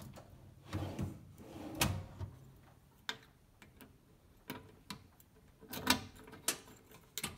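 A drawer of a steel tool chest being worked, along with its separate key lock: a scatter of metal clicks and knocks, about half a dozen, the loudest about two seconds in and about six seconds in.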